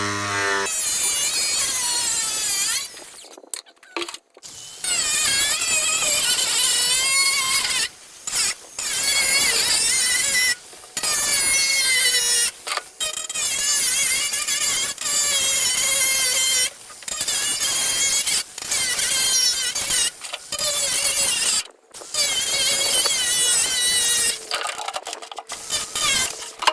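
Power saw cutting through a plastic barrel in about ten runs of two or three seconds, with short stops between them. Its high whine wavers in pitch as the blade bites.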